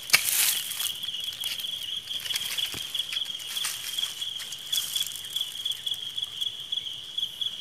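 An insect trilling steadily at one high pitch, with dry leaves and grass rustling now and then, loudest just after the start.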